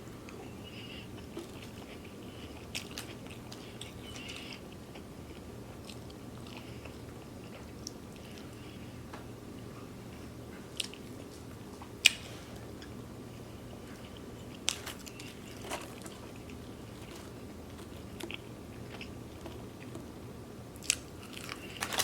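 Quiet close-up eating sounds: chewing and biting of gyro and fries, with soft mouth noises and a few short sharp clicks, the loudest about twelve seconds in.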